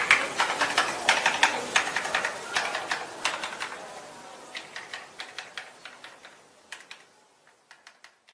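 Fast typing on an Epomaker TH96 mechanical keyboard: a quick run of key clacks that grows sparser and fades out over the last few seconds.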